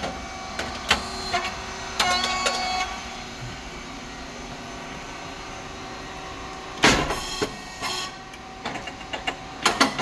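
SYP35100(S3) puffed rice cake machine running: its hydraulic motor-pump hums steadily under metallic clicks and clanks, with one loud, short pop about seven seconds in, typical of the heated mould opening as a rice cake puffs.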